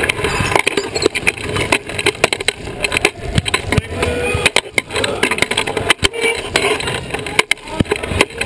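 Sports wheelchair rattling and knocking as it rolls and turns on a hardwood court, heard through a camera mounted on the chair's frame, with many sharp knocks and clacks as other chairs pass close by.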